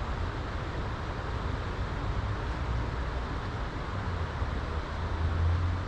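Steady rushing background noise with a constant low hum underneath, holding even throughout.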